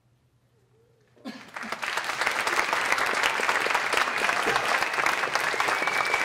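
Near silence for about a second, then an audience starts applauding, building quickly to steady, dense clapping.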